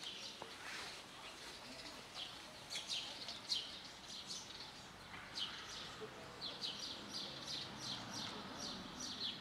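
Birds chirping: short high chirps that come in quick runs, over and over.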